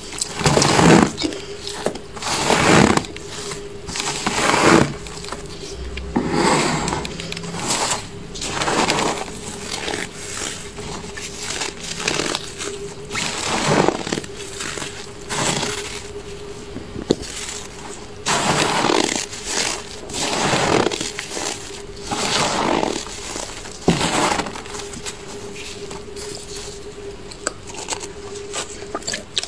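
A hand scraping and crunching soft freezer frost, in repeated strokes about every one to two seconds, with a steady hum underneath.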